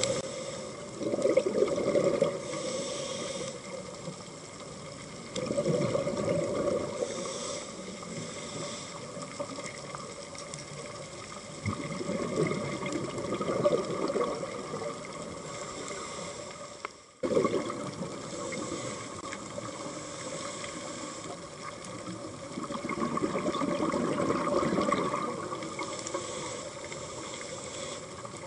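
A scuba diver's regulator heard underwater: bursts of exhaled bubbles about every five or six seconds, over a steady faint hum.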